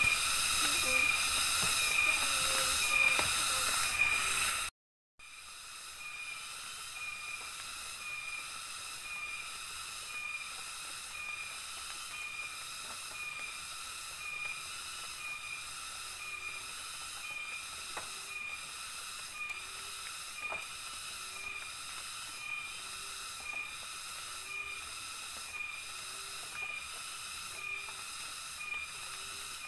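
Rainforest insect chorus: a steady high buzzing that pulses about twice a second. It drops out for a moment about five seconds in and comes back quieter. A soft, short low call repeats about once a second through the second half, with an occasional faint knock.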